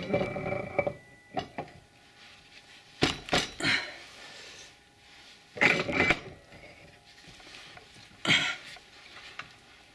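Metal rear brake drum of an ATV clanking and scraping as it is slid along the splined axle and pushed over new brake shoes, in four short bursts of knocks a couple of seconds apart, the first with a brief metallic ring.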